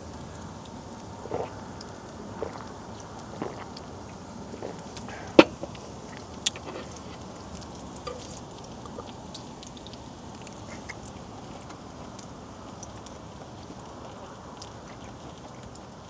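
Meat sizzling on a grill pan over a portable gas stove, a steady hiss with scattered light clicks of chopsticks and utensils. A sharp knock stands out about five seconds in, with a smaller one a second later.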